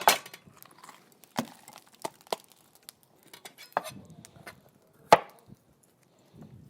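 Knife chopping vegetables on a cutting board to dice them small. A handful of separate, unevenly spaced strikes, the sharpest right at the start.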